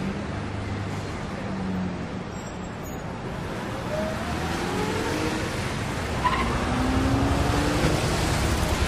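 City road traffic: a steady rumble of passing cars, with a vehicle engine accelerating, its pitch rising, through the second half, and the noise growing louder toward the end.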